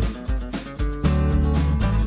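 Background music with a steady beat, a bass hit about twice a second under guitar-like notes.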